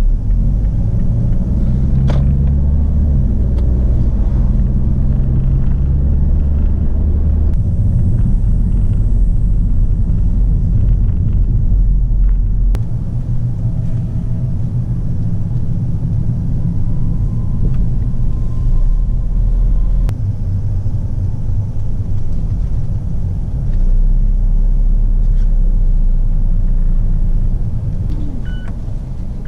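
Mazda Axela on the move: a steady low rumble of engine and road noise, with the engine note shifting now and then. A couple of short beeps sound near the end.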